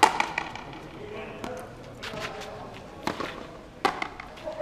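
Frontenis rally: the rubber ball is struck with strung rackets and smacks against the frontón's walls as a string of sharp cracks, each ringing briefly off the walls, with a cluster at the start and single hits roughly a second apart later on. Voices murmur in the background.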